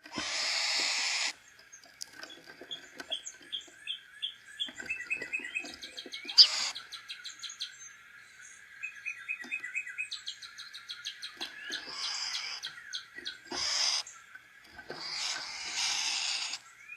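Backyard songbirds chirping and calling, with several quick runs of repeated notes, over a faint steady background tone. Several rough rushes of noise about a second long break in, one at the very start and others in the second half.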